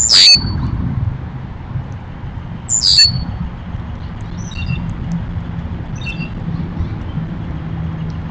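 Songbird calls: two loud, sharp calls about three seconds apart, each sliding quickly down in pitch to a short held note, followed by a few fainter chirps. A steady low rumble runs underneath.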